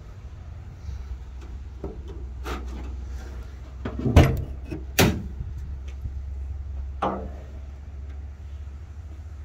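Car hood being unlatched and raised: a run of clunks and metallic knocks from the hood pins, latch and hood, the loudest two about four and five seconds in and another near seven seconds, over a steady low rumble.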